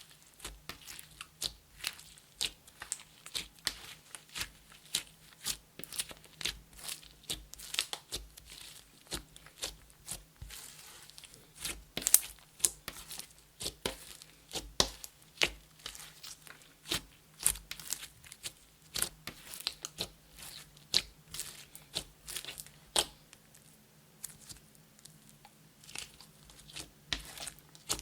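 Slime being kneaded and pressed by hand: a continuous, irregular run of sticky pops and crackles, a few a second.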